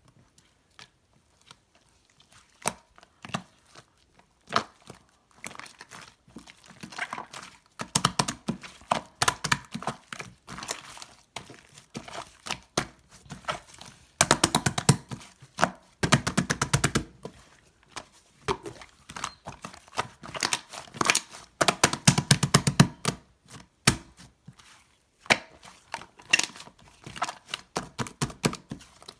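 Slime mixed with shaving foam being squeezed and worked by hand, giving rapid sticky clicking and popping in bursts of a few seconds, with short pauses between.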